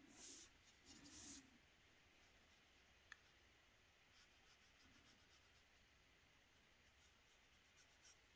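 Faint soft swishes of a synthetic watercolour brush stroking paper, twice in the first second and a half. Then near silence, with one small click about three seconds in.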